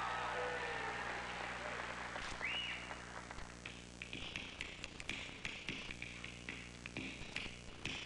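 Finger snaps picked up by a stage microphone: a steady rhythm of sharp snaps, about three a second, starting about three and a half seconds in as the audience noise dies away.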